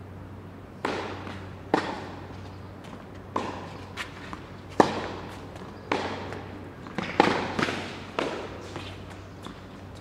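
Tennis rally: the ball is struck by rackets and bounces on the hard court. Sharp pops come about once a second, each echoing briefly in the enclosed hall.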